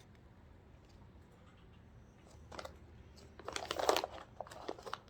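Crinkling and crunching noises in short bursts, starting about two and a half seconds in, the loudest just before four seconds.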